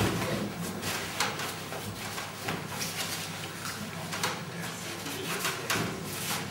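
Synthetic fabric of a tied-up sleeping bag rustling as it is handled and pressed onto a bicycle wheel rim, with a few light clicks and knocks.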